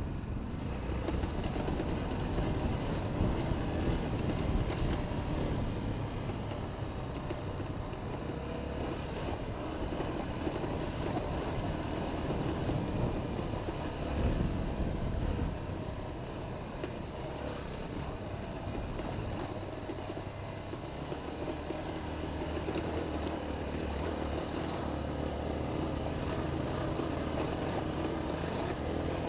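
Honda XR250 single-cylinder four-stroke trail motorcycle engine running, its level swelling and easing as it is ridden.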